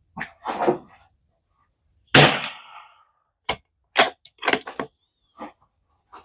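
A single .22 LR rifle shot from a Tikka T1X bolt-action about two seconds in, a sharp crack with a short tail, followed a second or so later by a quick run of metallic clicks as the bolt is worked to chamber the next round.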